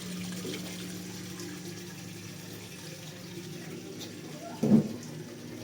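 GE front-load washer's drain pump running in the diagnostic drain test, a steady hum with water flowing out through the drain hose: the pump is draining immediately. A short vocal sound breaks in near the end.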